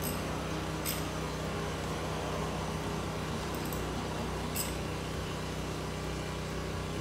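A few light, sharp metallic clicks from small engine parts being handled by hand, over a steady low hum.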